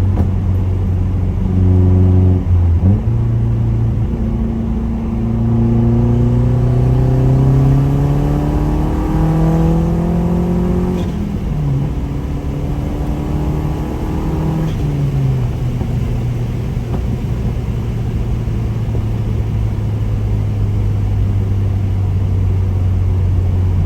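Mazdaspeed 3's turbocharged 2.3 L four-cylinder with an upgraded BNR S3 turbo pulling under load, its note rising steadily for about eight seconds. It cuts off abruptly on lift-off about eleven seconds in, and again briefly near fifteen seconds, giving turbo flutter (compressor surge) because the blow-off/bypass valve is blocked off. After that it settles to a steady low drone.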